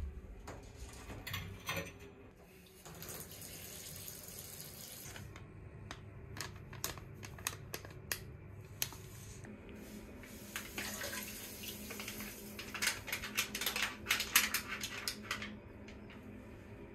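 Water running from a bathtub tap into the tub as a steady rush. Short clicks and crackles sound over it, thickest past the middle.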